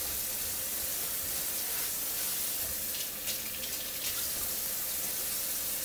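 Kitchen faucet running a thin stream of water into a stainless steel sink basin. The splashing gets brighter for about a second, three seconds in.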